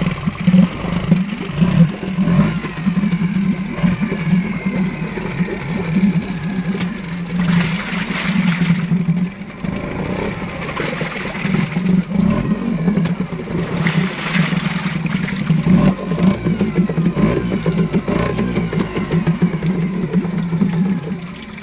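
Yamaha 5 hp two-stroke single-cylinder outboard motor running in a test barrel of water, its propeller churning the water. The throttle is opened up and eased back a few times, so the engine note rises and falls.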